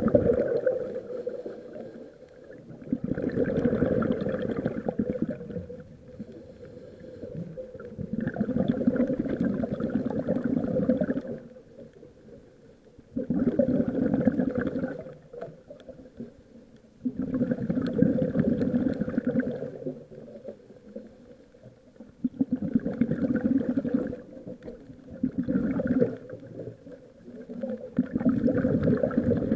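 Scuba regulator exhaust: a diver's exhaled air bubbling out underwater in bursts of a couple of seconds, one with each breath, about every four to five seconds, with quieter pauses between.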